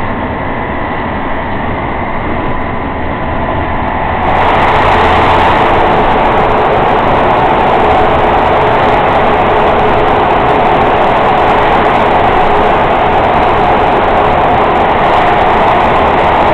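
Heavy truck's engine and road noise heard from inside the cab, steady under load on an uphill grade. About four seconds in it steps up and turns louder and fuller as the truck enters a road tunnel.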